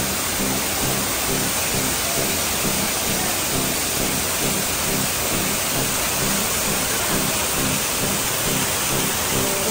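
Artificial waterfall pouring close by, a steady rushing splash of water. Music with a steady low beat runs underneath.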